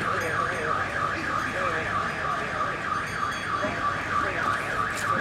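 An electronic alarm tone warbling rapidly up and down, about five sweeps a second, in a steady unbroken pattern like a car alarm.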